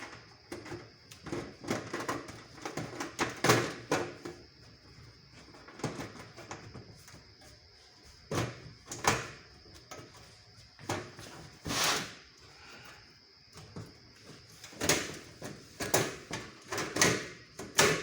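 Sheet-metal computer case panel being handled and fitted back onto the chassis: irregular knocks, clicks and scrapes, with sharper knocks a few seconds in, around the middle, and several together near the end.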